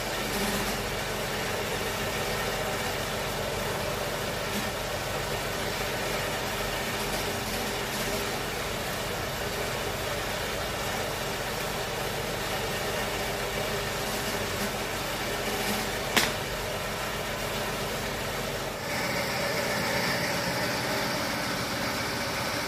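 A machine running with a steady hum, with one sharp click about 16 seconds in and a change in its tone a few seconds later.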